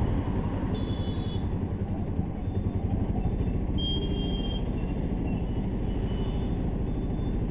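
Steady low rumble of road traffic and engines, heard from a moving vehicle as a car and a motorbike pass close by. Faint short high-pitched tones sound about one second and four seconds in.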